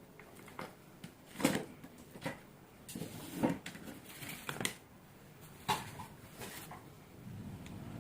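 Irregular knocks, clicks and short rustles, as of small hard objects being handled.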